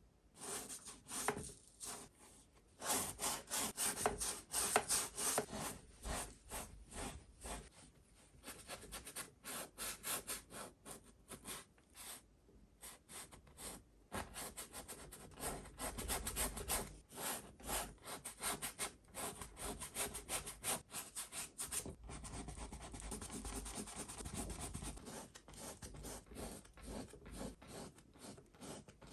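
Oil-paint brush strokes on the painting surface: bristles scratching and rubbing in quick, irregular strokes, turning into steadier, continuous scrubbing about three-quarters of the way through.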